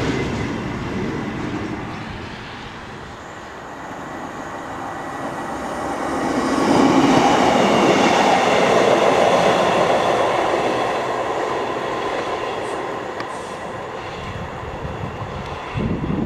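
East Midlands Trains Class 153 single-car diesel multiple unit passing below, its engine and wheels on the rails growing louder to a peak about seven seconds in, then fading away.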